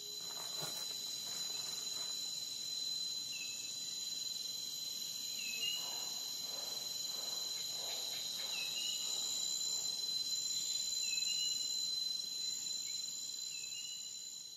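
Insects trilling steadily in a high, continuous chorus, with a short chirping call repeating every two to three seconds.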